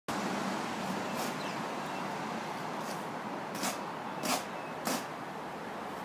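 A straight edge scraped across bedding sand in several short, gritty strokes as the sand is levelled for paving, over steady background noise.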